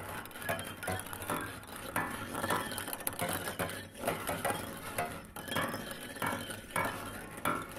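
Dense, irregular clinking and rattling, many small clicks in quick succession.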